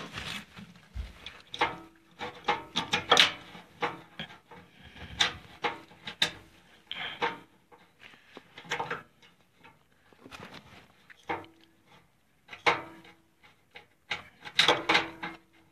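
Irregular small clicks, taps and scraping as a screw and a furnace capacitor's mounting are handled and turned in by hand.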